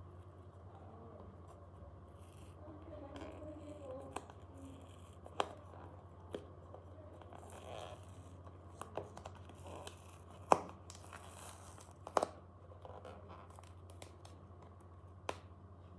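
Hands handling a small cardboard product box and its wrapping: soft rustling and scraping, broken by scattered sharp taps and clicks, the loudest about ten and twelve seconds in.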